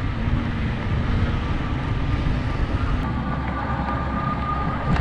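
Wind rumbling over the microphone on an electric bike riding across beach sand, with a faint steady high whine from the e-bike's electric motor.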